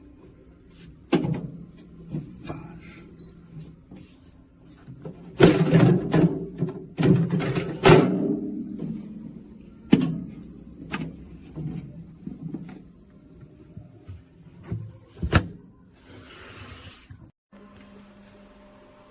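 A plastic portable car fridge and its parts being handled: irregular knocks, clicks and clatter, heaviest a few seconds in, with a short hiss near the end. A steady low hum then sets in.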